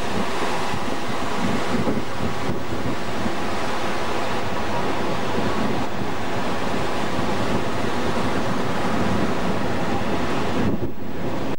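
Surf breaking and washing up over a sandy shore, a steady rushing wash, with wind buffeting the microphone.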